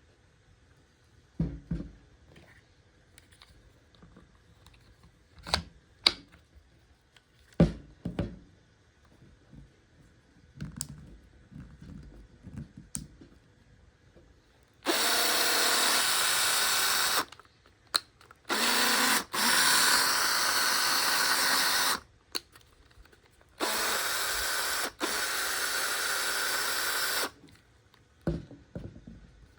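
Makita DF030D cordless driver drill running free in four bursts, each up to about three and a half seconds and one very brief, with clicks between them as the trigger or switches are worked. Before the runs come scattered handling clicks and knocks. The seller lists this cleaned and regreased unit as having an abnormal noise.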